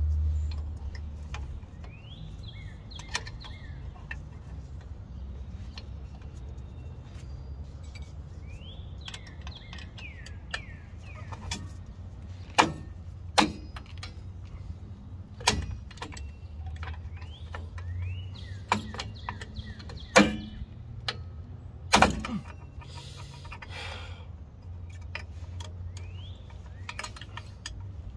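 Metal brake springs and hardware clinking against the steel backing plate and shoes of a drum brake as they are hooked into place, with a handful of sharp clicks in the second half. Birds chirp repeatedly over a low steady rumble.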